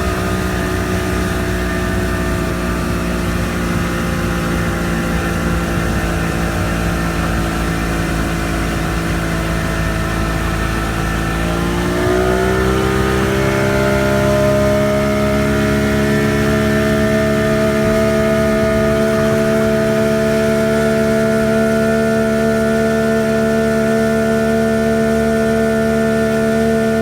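1989 Bayliner's engine running at a steady speed. About twelve seconds in, the revs rise smoothly to a higher steady speed and hold there.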